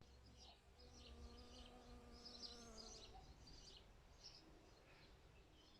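Faint buzzing of a flying insect, a steady hum from about half a second in until about three seconds, with birds chirping faintly in the background.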